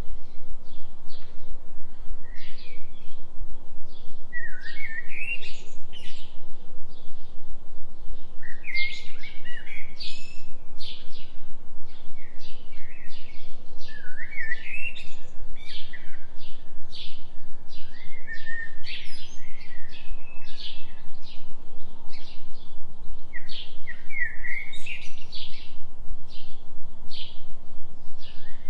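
Songbirds chirping and trilling in quick, repeated phrases, some sweeping up in pitch, over a steady low hum from a delta binaural-beat tone.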